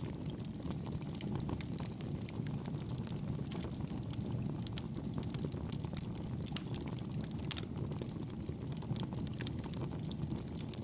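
Fire burning in a fireplace: a steady low rumble of flames with frequent small, irregular crackles and pops.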